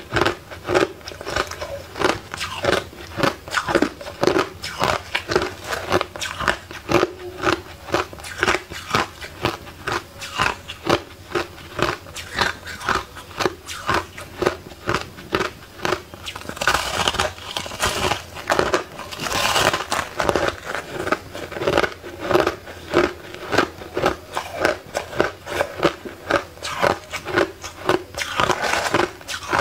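Crushed ice being bitten and chewed close to the microphone: a steady run of crisp crunches, about two or three a second, with a few longer, hissier crunches about halfway through and again near the end.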